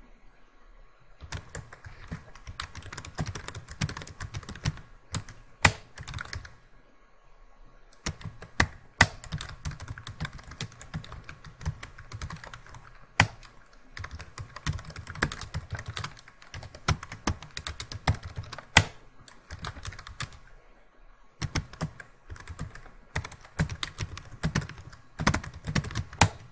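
Computer keyboard typing in quick runs of keystrokes broken by short pauses, with a few sharper, louder single key strokes standing out.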